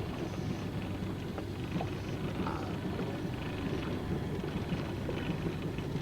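Small fishing boat's outboard motor running steadily while trolling, with wind and choppy water noise.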